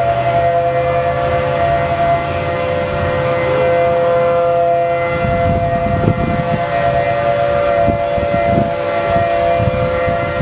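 Outdoor tornado warning siren sounding a steady two-pitch tone, held level in pitch, signalling a tornado warning. A low rumble joins it from about halfway through.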